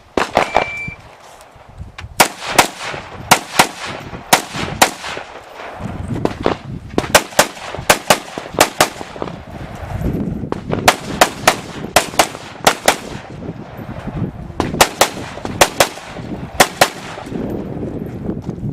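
An electronic shot timer beeps once to start. An AR-15-type rifle in .223 Remington then fires many rapid shots in quick pairs and short strings, with brief pauses between the groups.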